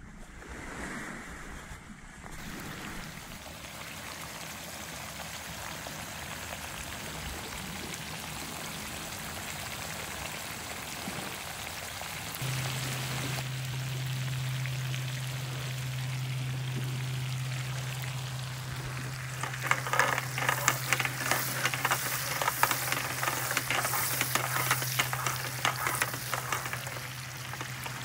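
Croaker fillets frying in garlic butter in a pan on a portable butane stove, a steady sizzle. A steady low hum joins about halfway through, and in the last third the frying turns to louder, dense crackling and spattering.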